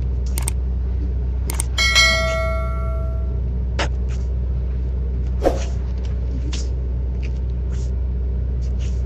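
A steady low engine rumble with a metallic clang about two seconds in that rings on for over a second, like a struck bell, and scattered light clicks and knocks.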